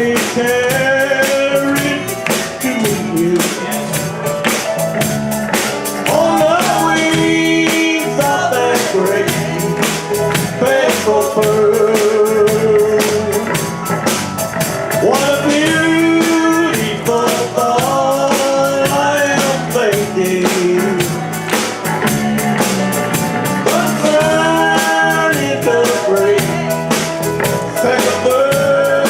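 A man singing a gospel song with live instrumental accompaniment and a steady beat, holding long notes.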